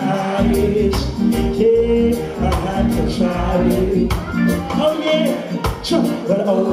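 Live reggae band playing, with a man singing lead into a microphone over electric guitar, bass and drums keeping a steady beat.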